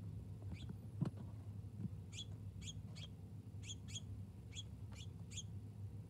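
Small songbird chirping: about nine short, high chirps in quick succession from about two seconds in. A single sharp knock about a second in, a bird striking the window feeder's mirror glass, is the loudest sound.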